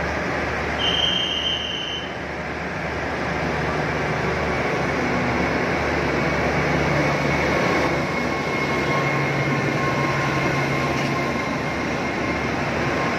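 Alsthom ALD-class diesel-electric locomotive rolling slowly into the platform: the diesel engine runs at a low steady note and the rumble of the wheels on the track grows louder as it approaches and passes close by, with a faint high wheel squeal. A brief high tone sounds about a second in.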